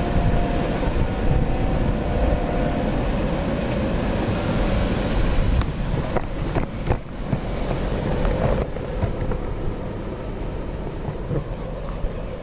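Steady low rumble of wind on the microphone. About six seconds in, a car drives over the railroad grade crossing, with a few sharp knocks as it crosses the rails.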